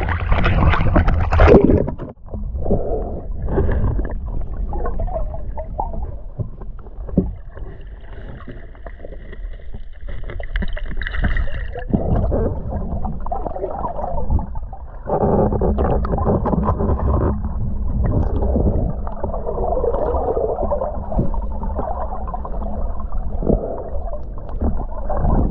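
Muffled water sloshing and gurgling, heard through a sealed waterproof camera housing on a speargun as it moves through the water. It is loudest in the first two seconds, quieter for a stretch in the middle, and picks up again for the second half.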